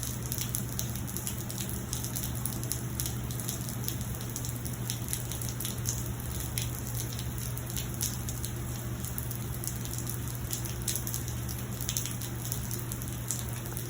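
Steady rain, with many separate drops striking close by, over a constant low hum.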